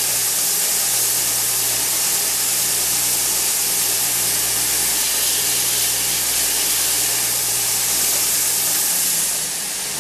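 Stationary edge belt sander running: a steady hiss from the moving abrasive belt over a low motor hum, as small walnut pieces are sanded smooth on it.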